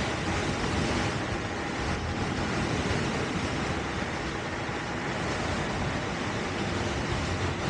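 Extreme Bull Commander GT Pro electric unicycle riding at speed: a steady rush of wind over the microphone and tyre noise, with a faint steady whine from the hub motor.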